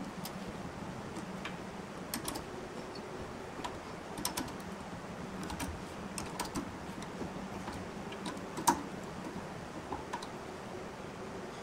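Scattered light clicks and taps from handling the turned wooden workpiece and lathe fittings, with one sharper knock about nine seconds in, over a faint steady hum.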